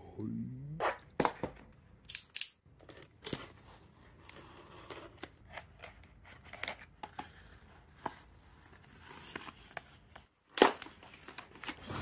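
Utility knife slicing through a cardboard shipping box and its packing tape in a run of short scraping cuts, with the cardboard rustling as it is handled; the loudest tear comes about ten and a half seconds in.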